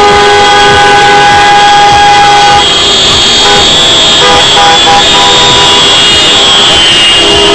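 Many car horns honking together in long, held blasts from a passing car convoy, very loud.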